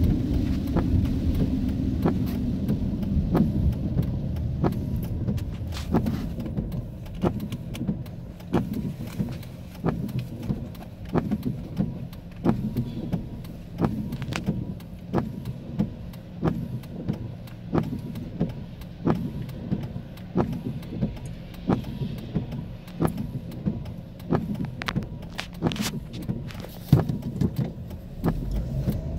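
Inside a car in the rain: a low rumble from the car under many sharp ticks and taps, the sound of raindrops hitting the windshield and roof. The low rumble eases a few seconds in.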